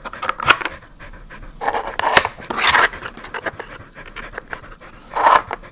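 A Samoyed panting, with a few sharp clicks as the hard plastic sliders and flaps of a dog treat puzzle are moved.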